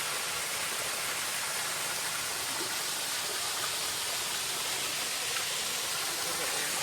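Waterfall pouring into its rock pool: a steady, even rush of falling water. The flow is low, as in the dry season.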